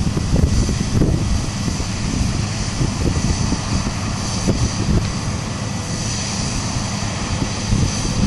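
Heavy diesel harvest machinery running steadily, a continuous engine drone with a constant mechanical whir over it.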